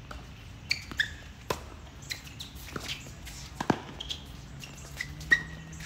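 Doubles tennis rally on a hard court: a quick, irregular run of sharp pops as rackets strike the ball and the ball bounces on the court, with a few short sneaker squeaks in between.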